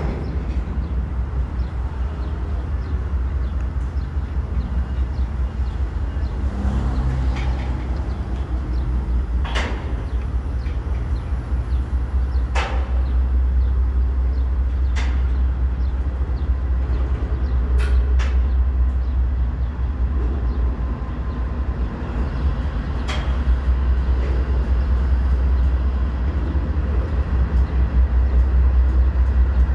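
Covered hopper cars of a freight train rolling slowly along the track, a steady low rumble. A few sharp metallic clanks or squeaks stand out now and then.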